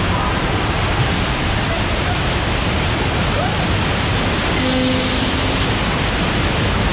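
Steady, loud rushing noise with no clear events, and a short low hum about two-thirds of the way through.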